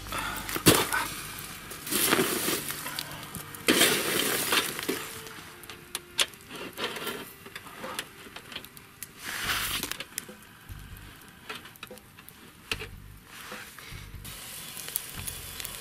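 Charcoal being raked and spread in a portable steel shashlik brazier with a metal scoop, in several loud scraping, rattling bursts. Then come quieter clinks of metal skewers laid across the brazier, and meat sizzling over the coals.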